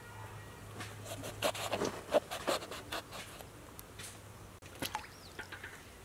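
Kitchen knife slitting whole brinjals (eggplants), a run of short cuts through the skin and flesh, with a steady low hum underneath.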